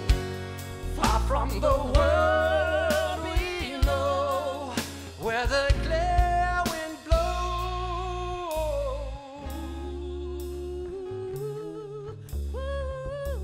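A live band plays a song: a singer's voice with strong vibrato over drum kit, bass and acoustic guitar. In the second half the vocal gives way to long held notes, with regular cymbal strokes.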